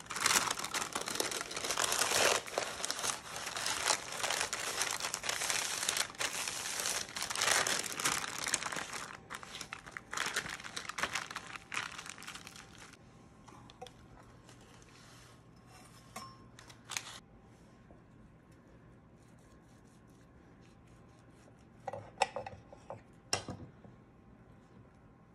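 Parchment paper crinkling and rustling as hands roll a sponge cake up tightly in it, for about thirteen seconds. After that it goes quiet except for a few light taps and knocks near the end.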